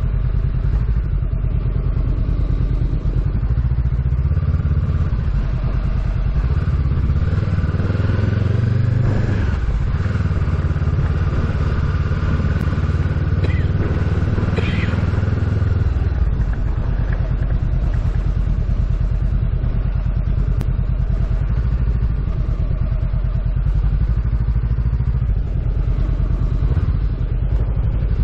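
A motor vehicle on the move: steady, loud engine and road noise, with a change in the engine note for several seconds around the middle.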